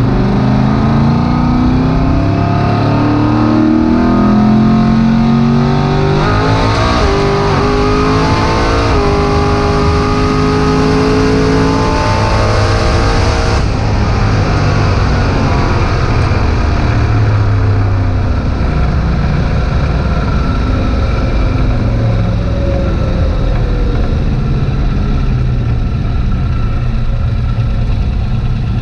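Twin-turbo 427ci LS V8 in a drag-raced Buick Skylark at full throttle, heard from inside the cabin. It climbs in pitch and drops back at several gear changes over roughly the first 14 seconds, then pulls steadily at very high speed on a roll-race pass that tops out around 186 mph.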